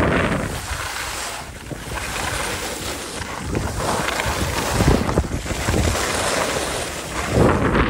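Wind rushing over the microphone of a skier going downhill, with skis scraping over groomed snow. The noise swells and eases every couple of seconds as the skier turns.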